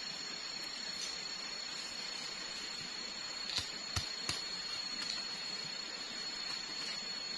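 A blade cutting into a bamboo pole, with a few sharp knocks about three and a half to four and a half seconds in. Behind it, an even forest hiss with a constant high-pitched whine.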